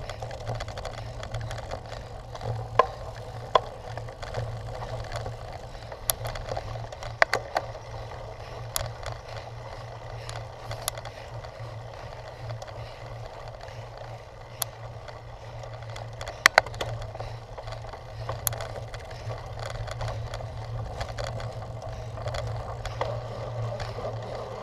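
Cyclocross bike rattling and clattering over rough ground, with a steady rumble and frequent sharp knocks from the frame and chain at irregular intervals.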